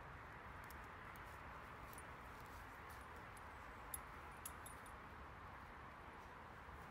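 Near silence: a faint steady hiss of outdoor ambience with a few soft clicks, the sharpest about four seconds in.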